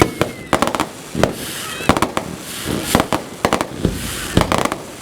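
Fireworks display: a rapid, irregular series of sharp bangs and crackling clusters of reports, sped up to double speed.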